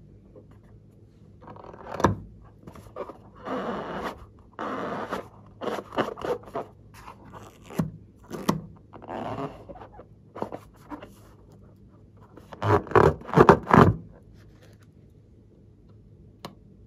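Hands gripping and rubbing a filled rubber balloon, the rubber scraping against skin in irregular bursts, loudest near the end. A single light click follows a few seconds later.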